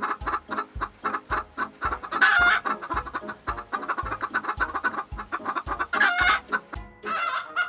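Chickens clucking, with three louder, short squawking calls about two, six and seven seconds in, over background music with a steady beat.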